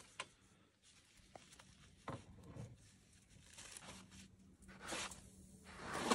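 A few faint, irregular knocks and scuffs of boots on the metal rungs of a ladder tree stand as someone climbs it, with clothing rustling.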